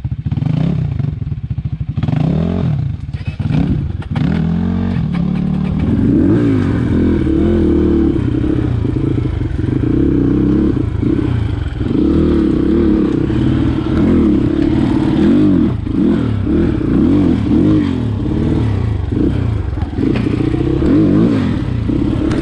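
Dirt bike engine revving hard, its pitch climbing and falling again and again, with rattling and knocking in the first few seconds.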